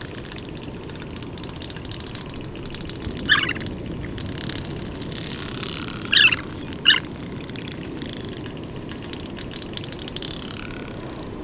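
Male magnificent frigatebird's rapid rattle from bill snapping, running in two long stretches. Short, loud squeals cut in three times: once about a third of the way in, then twice close together a little past halfway.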